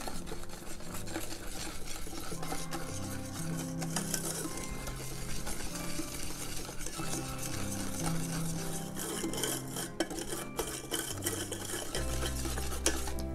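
Wire whisk stirring and scraping in a stainless steel saucepan, beating eggs, sugar and cornstarch into a thick paste, with soft background music underneath.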